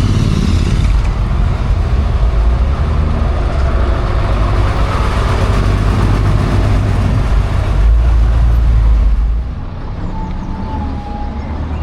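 Diesel bus engine running loud and low, dropping off suddenly about nine and a half seconds in to a quieter engine note.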